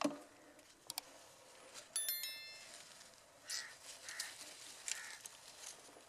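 Faint rural outdoor sound with a sharp tap at the start and a short bell-like ring about two seconds in. Three short harsh bird calls follow, a little under a second apart.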